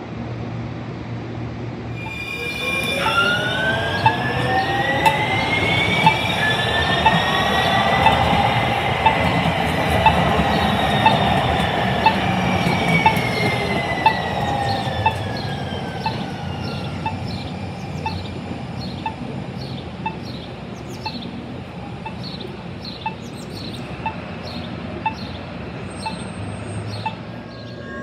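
Light rail train passing close on street track, giving a whine that rises in pitch, peaks, then falls away as the train moves off. A bell dings about once a second throughout.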